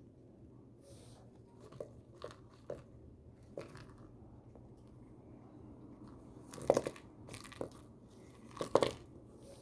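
A few short, sharp crunching clicks at irregular intervals, the loudest two close together about two-thirds of the way through and again near the end.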